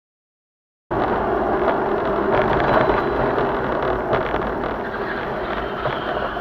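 Dead silence for about the first second, then a steady noise of a moving car's engine and tyres on the road, heard from inside the cabin.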